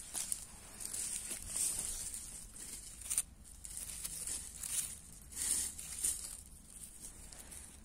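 Leafy wild greens being picked by hand: leaves rustling and crackling and stems tearing in irregular bursts, with one sharp snap about three seconds in.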